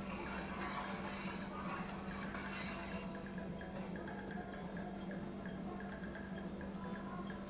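Metal spoon stirring and scraping in a stainless steel saucepan of jaggery melting into syrup, with light clinks against the pan. A steady low hum runs underneath.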